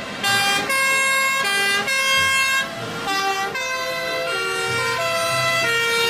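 Fire engines' two-tone sirens wailing, the pitch stepping back and forth between two notes roughly every half second, with more than one siren sounding at once and out of step.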